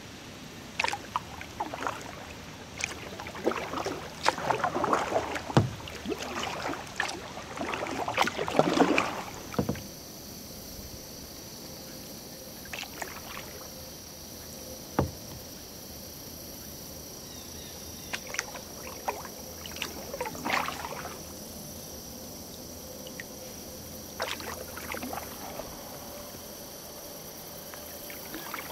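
Kayak paddle strokes dipping and splashing in calm river water. The strokes come in busy clusters in the first third, then only now and then, with one sharp knock near the middle.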